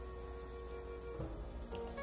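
Soft background music of slow, held notes, with faint clicking of a computer keyboard being typed on.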